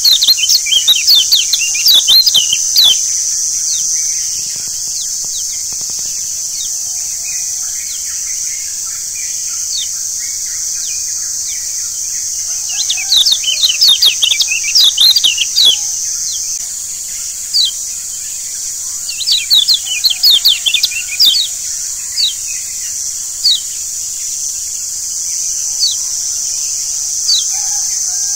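Lombok yellow white-eye (kecial kuning, a Zosterops) song used as a lure recording: rapid flurries of high, sharp chirps near the start, around the middle and about two-thirds through, with single chirps scattered between. A steady high-pitched hiss runs beneath.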